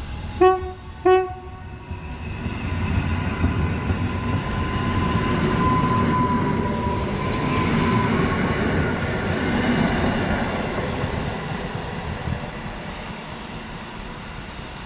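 Modernized EN57 electric multiple unit sounds two short horn blasts, then pulls past close by. Its running rumble and a steady whine build to a peak about halfway through and then fade as it moves away.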